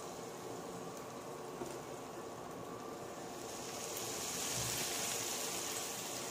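Tomatoes, onions and green chillies sizzling in hot oil in a kadai: a steady soft hiss that grows a little louder about four seconds in.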